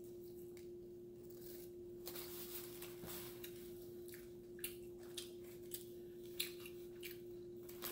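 A person chewing a bite of hamburger, faint, with short wet smacking clicks of the mouth from about two seconds in, over a steady low hum.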